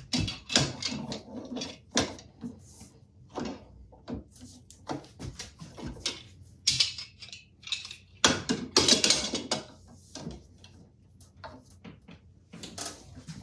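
Big channel-lock pliers wrenching on a metal part clamped in a bench vise: irregular metal clicks, clanks and short scrapes, with longer grinding scrapes about half a second in and from about eight to nine and a half seconds in.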